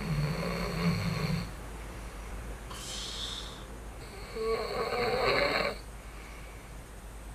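A man snoring in his sleep: a deep snore at the start, a short hissing breath, then a second, brighter snore a few seconds later. He is wearing a nose-insert anti-snoring device that does nothing to stop it.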